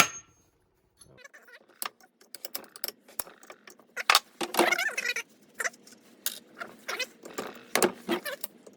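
Metal tools and engine parts clinking, knocking and clattering in irregular bursts as they are handled and worked against a crankshaft sprocket. It opens with the ringing tail of a hammer strike on metal.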